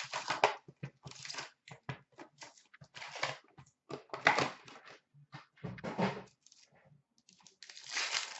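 Foil hockey-card packs being handled and torn open: wrappers crinkling and tearing in short, irregular bursts.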